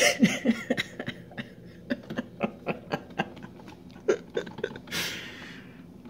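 A brief chuckle, then a run of irregular light clicks and pops, and a breathy exhale about five seconds in.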